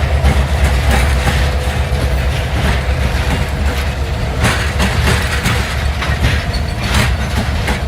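Canadian Pacific freight train rolling past close by: a heavy, steady rumble with the wheels clicking irregularly over rail joints.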